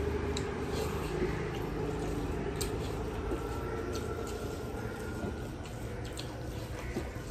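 Eating by hand: fingers squishing and mixing rice and meat curry on metal plates, with scattered soft clicks, over a steady low hum.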